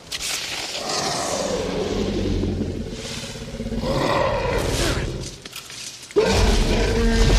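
Film sound effect of a Tyrannosaurus rex growling and roaring in two long swells, over the hiss of heavy rain. A much louder sound starts suddenly about six seconds in.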